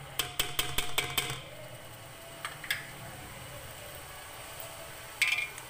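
Metal slotted spoon clinking and scraping against a metal cooking pot while stirring potatoes, peas and tomatoes. There is a quick run of taps in the first second or so, two more a little later, and a short clatter near the end.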